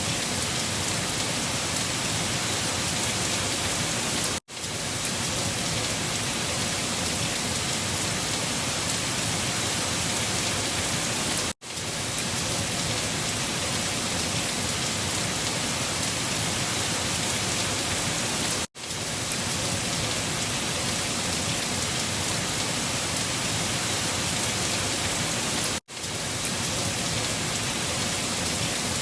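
Steady, heavy rain falling on a surface, an even, dense hiss. Four times, about every seven seconds, it cuts out for a split second and comes straight back.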